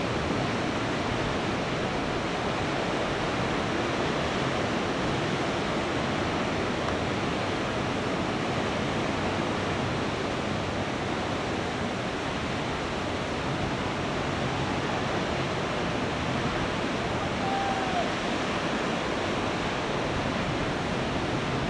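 Steady, even roar of ocean surf breaking on the beach.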